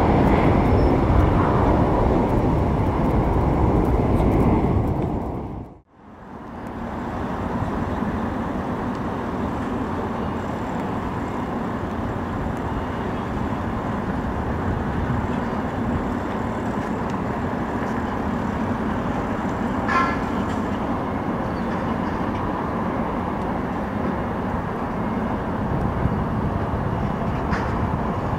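Boeing 777F's twin GE90 turbofans at takeoff thrust as the freighter climbs away, a loud, dense rumble that fades out about five seconds in. After a moment of silence, a steady, quieter jet rumble follows as a Boeing 787 lands and rolls out.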